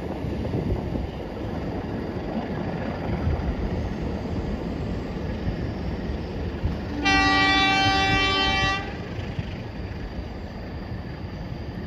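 Passenger train rumbling as it pulls away, with the locomotive's horn sounding one long, steady blast of a little under two seconds about seven seconds in.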